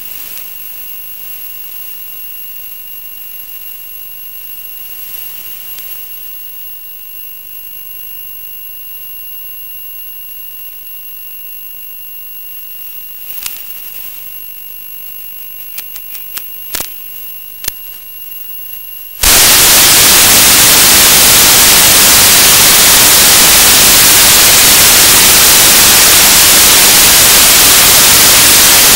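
Audio channel of an analog FPV video receiver: a low hiss with two steady high-pitched whine tones and a few sharp crackles, then about two-thirds of the way in it jumps suddenly to loud white-noise static as the radio link from the plane breaks up.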